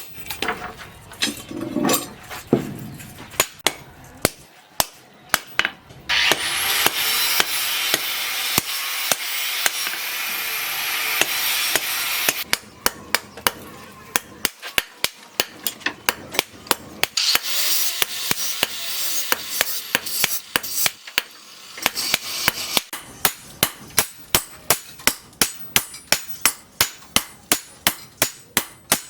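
Hammer blows on metal: irregular strikes at first, then steady hammering at about two blows a second in the last several seconds. About six seconds in, a steady high hiss starts and lasts about six seconds.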